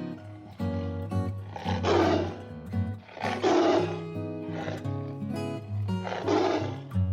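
A big cat roaring in three short bursts, about two, three and a half and six and a half seconds in, over background music.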